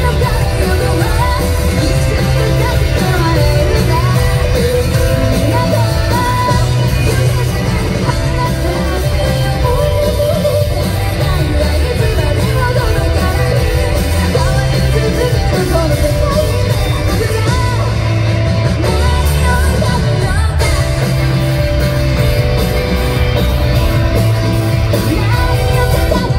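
A rock band playing live, with a female lead singer over electric guitar, bass and drums.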